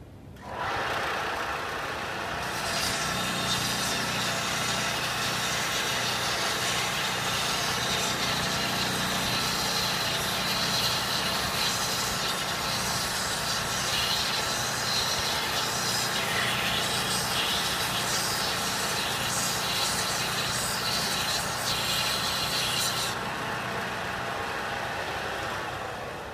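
A 6-inch belt and 9-inch disc sander is switched on and runs with a steady motor hum. From about two seconds in, the end of a wooden dowel is held against the moving belt and sanded to a point, which adds a hiss. The hiss stops a few seconds before the sander is switched off near the end.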